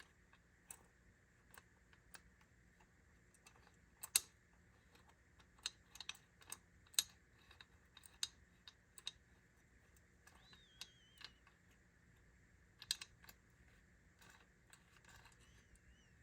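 Sparse small clicks and taps of the Model T ignition switch's metal parts being handled and worked by hand, with the louder clicks about 4, 7 and 13 seconds in.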